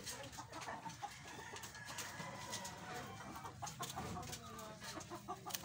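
Faint bird calls over scattered clicks and taps.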